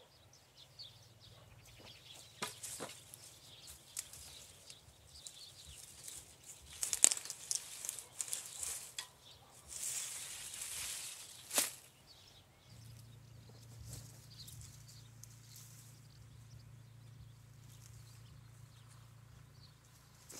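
Garlic plants rustling as they are handled, with a few sharp crackles of the leaves and stalks, the loudest a little past the middle. A faint steady low hum runs underneath.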